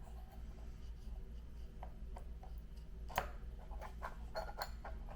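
Light rubbing with scattered small clicks and taps as a scratch-built HO-scale model railroad turntable is pushed by hand back into its pit; the sharpest tap comes about three seconds in. A steady low hum sits underneath.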